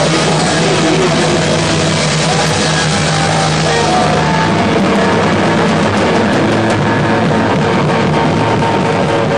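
Loud rock music with distorted electric guitar and drums, in a punk or metal style.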